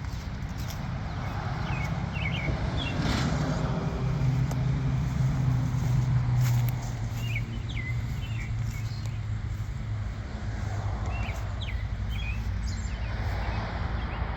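Outdoor ambience: a steady low rumble that grows louder for a few seconds in the middle, with short bird chirps here and there.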